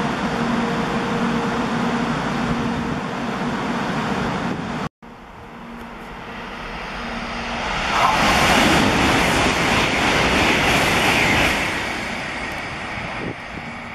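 Shinkansen bullet train noise: a steady loud rush of air and wheels, cut off abruptly about five seconds in. Then a second bullet train passes through the station at speed, its rushing noise building to a peak for a few seconds and fading.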